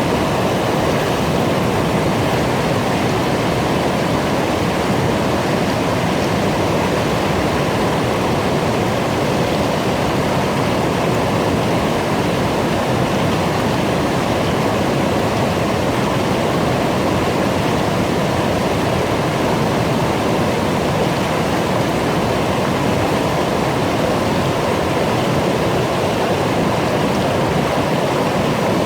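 Brook babbling: a steady, loud rush of flowing water without a break.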